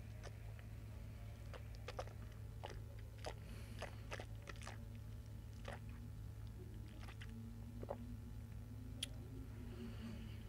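Faint, irregular wet clicks and smacks of the mouth and tongue as whisky is worked around the palate while tasting, over a steady low hum.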